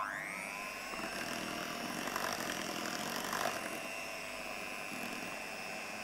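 Kenwood electric hand mixer beating whipped-cream frosting in a glass bowl. The motor starts with a rising whine over about the first second, then runs steadily at speed.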